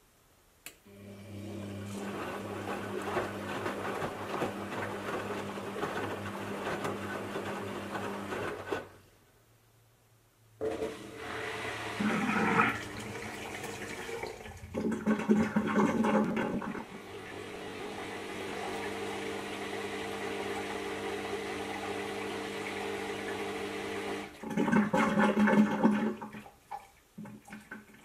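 Front-load washing machine draining: the drain pump hums steadily while water gurgles and rushes through it. It stops for about two seconds roughly nine seconds in, then starts again with louder, uneven surges of gurgling.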